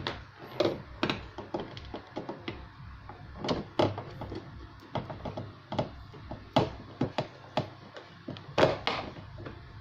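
Screws being fitted and tightened into the top cover of a twin-tub washing machine: irregular clicks, taps and knocks of the tool and parts against the cover, some louder knocks about 3.5, 4, 6.5 and 8.6 seconds in.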